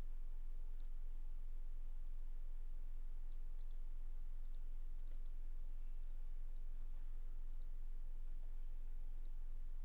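Computer mouse clicking on and off, sharp short clicks with several in quick pairs, over a steady low hum.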